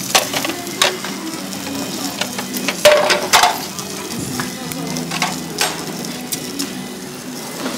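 Food frying in hot oil with a steady sizzle, broken by sharp clacks of cooking utensils against the pan, loudest about three seconds in.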